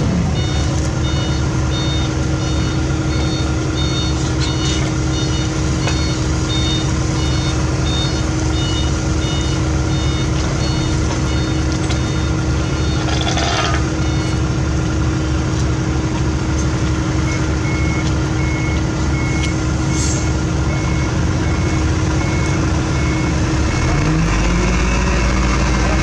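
Reversing alarm beeping steadily over the running diesel engines of a dump truck and a wheeled asphalt paver, as the truck backs up to the paver's hopper. A short hiss comes about halfway through, and near the end the truck engine rises in pitch and runs harder as the dump bed lifts.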